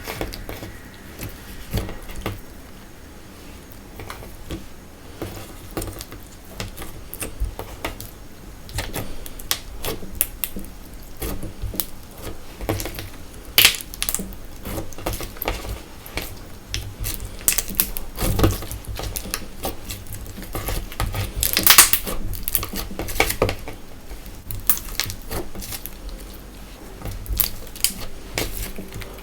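Slime being squeezed and pressed by hand, giving a dense run of irregular sticky clicks and crackles, with a few louder crackling bursts about 14 and 22 seconds in.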